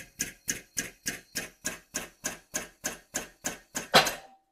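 Rapid hammer blows on a hex key used as a drift, knocking out a tight press-fit connecting-rod bolt from a Toyota 5E-FE engine. The sharp metal-on-metal taps come steadily at about four to five a second. A louder blow lands near the end and the hammering stops.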